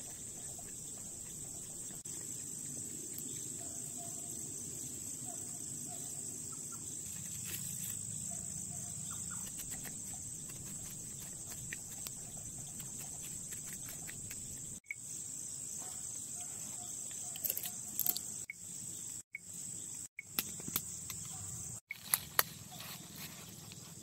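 A steady, high-pitched chorus of crickets trilling in the evening. A few sharp clicks of handling come in the second half, and the sound cuts out briefly several times.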